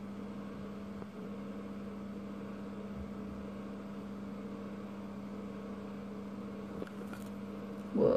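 A steady low hum, like a small motor or appliance running, with a short louder sound about eight seconds in.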